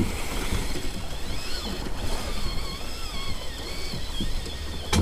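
Wind and sea noise aboard a small boat on the open ocean: a steady low rumble with water sounds, faint wavering high tones above it, and one sharp click near the end.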